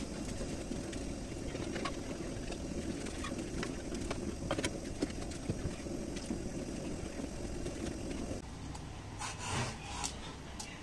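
Butter melting in a wok on a gas stove: a steady low rush of flame and frying with a few small pops. Near the end, a vegetable peeler scrapes the skin off a bottle gourd in short strokes.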